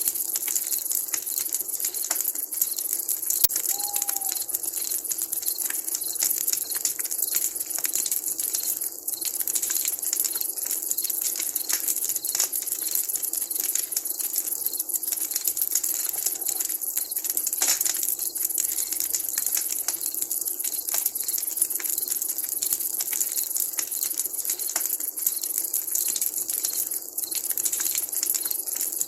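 Wood campfire crackling, with a steady hiss and many small sharp pops. There is one brief falling call about four seconds in.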